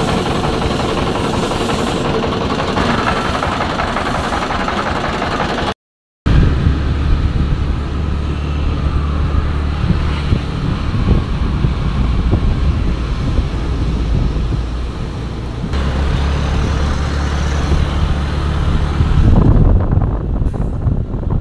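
Car driving on the road: a steady low drone of engine and road noise, deeper and heavier after a brief silent cut about six seconds in.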